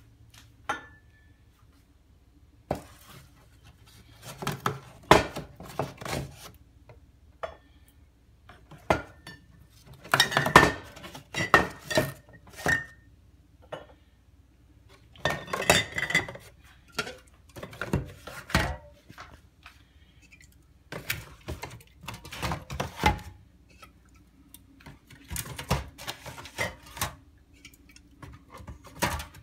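Aluminium drink cans being handled and pushed into a cardboard 12-pack carton: repeated clinks and knocks of can against can and box, in irregular clusters.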